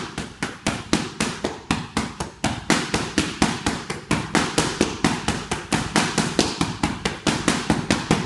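Boxing gloves striking focus mitts held by a coach, a rapid, steady flurry of smacks at about five a second.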